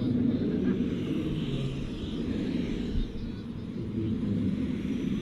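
JetCat P400-Pro-LN model jet turbine running at low power as the large RC jet taxis, a steady low rumble with a faint high whine that drifts up and down in pitch.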